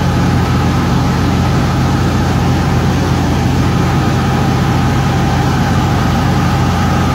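Light aircraft's piston engine and propeller droning steadily, heard from inside the cockpit in flight, with no change in pitch.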